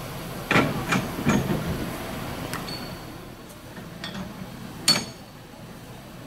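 Metal-on-metal clanks of a narrow-gauge steam tank locomotive being coupled to a coach: three heavy knocks in quick succession, then a few sharper, ringing metallic clinks from the coupling gear.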